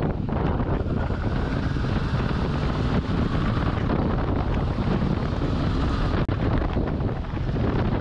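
Wind rushing over the rider's microphone while a Suzuki V-Strom 650 is ridden, with the bike's V-twin engine running underneath. The engine's pitch rises a little in the first few seconds.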